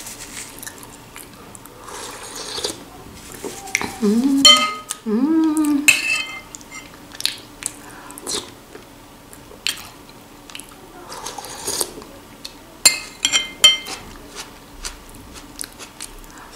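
A metal spoon clinking and scraping against a glass bowl as broth with broccoli is scooped up, in scattered sharp clicks, some ringing briefly. It comes with sipping and eating sounds from the spoon, including a few short hums about four to five seconds in.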